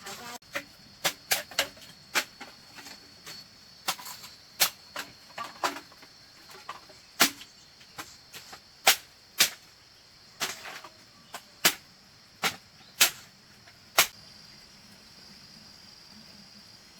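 A series of about twenty sharp knocks at irregular intervals, roughly one to two a second, stopping about fourteen seconds in. A steady high cricket chirring runs underneath and is left on its own at the end.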